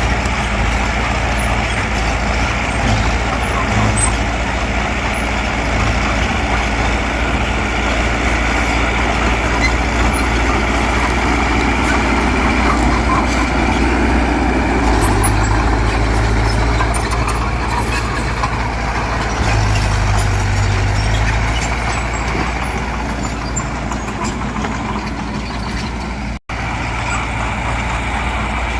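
Heavy diesel earthmoving machinery running steadily with a deep engine drone. The sound cuts out abruptly for a moment near the end.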